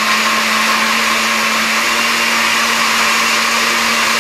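Countertop blender running steadily at full speed, blending a watermelon slushy, with a constant motor hum under the whirring.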